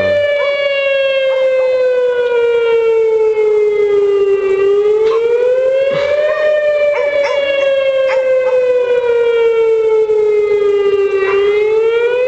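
Outdoor severe weather warning siren sounding during its monthly test: one loud wailing tone whose pitch sinks slowly for about five seconds, then climbs back quickly, twice.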